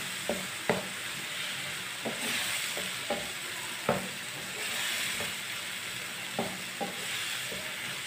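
Bitter gourd strips, tomatoes and chillies sizzling in a nonstick frying pan after a little water has been added, stirred with a wooden spatula that knocks against the pan at irregular moments.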